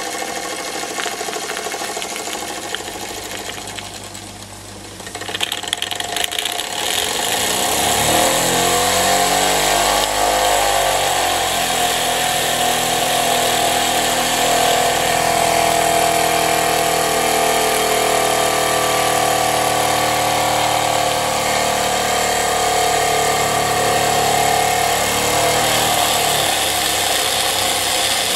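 Wilesco D45 toy steam engine running fast, with the hiss of escaping steam. It grows louder and picks up speed about six to eight seconds in, then runs on steadily.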